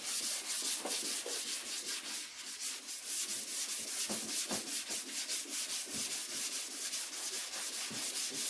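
Sandpaper on a long hand sanding block rasping over the primer of a car's steel quarter panel in a steady run of quick back-and-forth strokes. This is block sanding the guide-coated primer in a cross-hatch pattern to level the panel.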